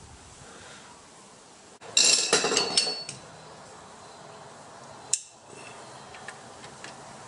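Metal parts and tools clattering together: a burst of sharp metallic clinks about two seconds in, one leaving a short ringing note, then a single sharp click about five seconds in.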